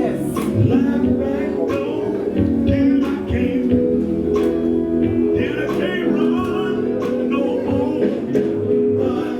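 Live gospel band playing with electric guitar, bass and drums, with singing over it.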